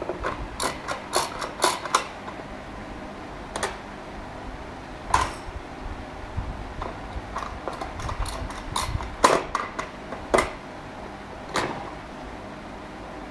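Irregular taps, clicks and knocks of hard plastic as a baby's hands pat and handle plastic toys on a playpen ledge, some in quick clusters.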